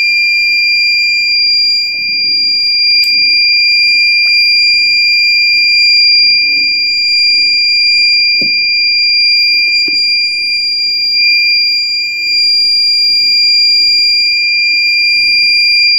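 Leak-warning alarm of a ship-hull water-leak detector prototype, sounding one loud, continuous high-pitched tone that does not waver. It signals that water has reached the sensor in the hull.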